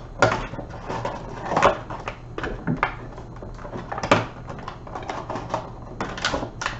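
A Funko Pop cardboard box being handled and worked open by hand: an irregular string of rustles, taps and clicks against the packaging as it resists opening.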